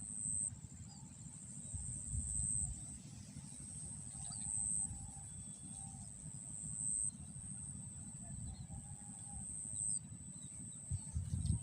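High-pitched insect buzzing in stretches of a few seconds that start and stop, with faint short bird chirps and a low rumble underneath.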